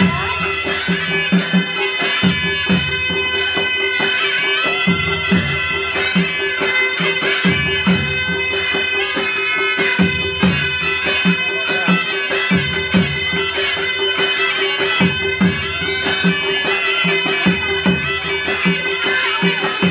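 Panche Baja band playing: a reedy sahanai melody wavers over a steady held drone, driven by a repeating pattern of dholaki drum strokes and sharp strikes.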